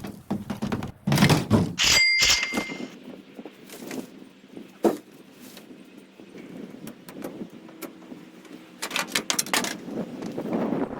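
A series of knocks and clatters, as of gear being handled and moved, with a short metallic ring about two seconds in and another burst of clatter near the end.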